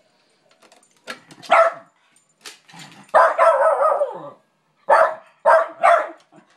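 West Highland white terrier barking at a squeaky toy he can't reach. There is a single bark about a second and a half in, then a longer drawn-out wavering bark lasting about a second, then three quick barks in a row near the end.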